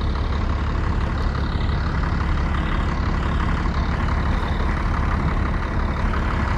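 Peterbilt truck's diesel engine idling steadily, left running to check it for antifreeze leaks.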